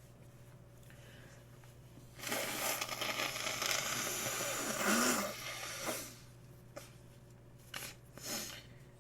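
A person with a congested nose forcing air loudly through the blocked nose, a rough noise lasting about four seconds with a short grunt near its end. A few short, fainter breaths or sniffs follow.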